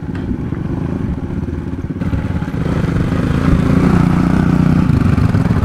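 Small dirt bike engine running, then revving up and holding higher revs from about halfway through as the bike pulls away.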